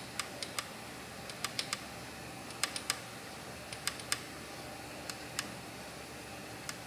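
Light, sparse clicks from a ratchet on the crankshaft bolt of an LS V8 short block, coming in twos and threes as the crank is worked back and forth near top dead center.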